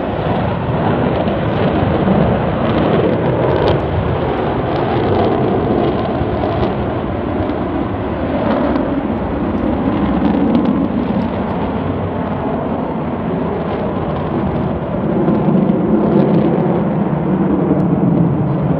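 Blue Angels F/A-18 jet engines giving a loud, continuous roar that swells and eases as the jet flies overhead.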